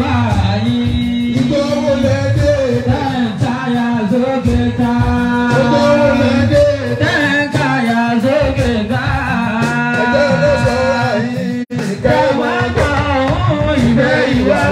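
A man singing through a PA over instrumental backing, with a long held low tone under the voice. The sound cuts out for an instant about twelve seconds in.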